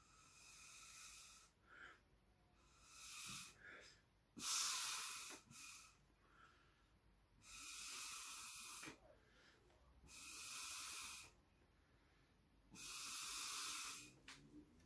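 Breath blown through a drinking straw in short puffs, pushing watery black paint into branch shapes: about six airy blows of a second or so each, a few seconds apart, the strongest about four and a half seconds in.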